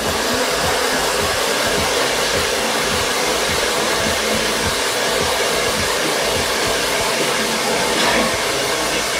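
Electric hair dryer of about 2000–2400 watts blowing steadily, drying hair to give it volume.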